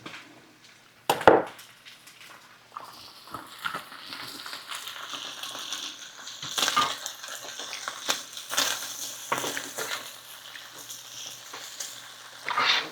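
Food frying in hot oil, a steady sizzle with irregular crackles and pops, after a sharp knock about a second in.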